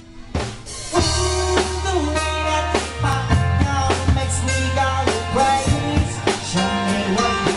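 Live band playing an upbeat dance number: electric keyboard over a drum kit and heavy bass, filling out about a second in with regular drum hits.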